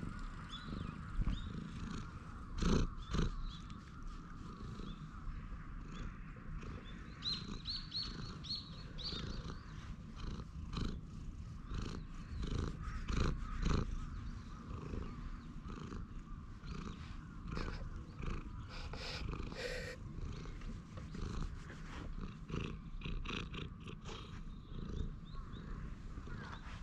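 Stray brown tabby cat purring steadily while being stroked, its head close to the microphone. A few louder bumps come about three seconds in and again midway.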